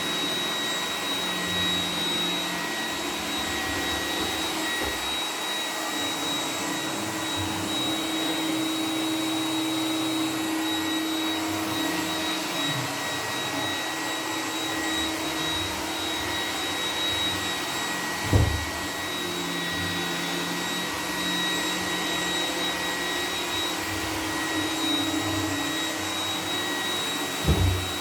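iRobot Roomba 980 robot vacuum running in boost mode at full suction: a steady whirring rush with a high-pitched motor whine. Two brief thumps, one about two-thirds of the way through and one near the end.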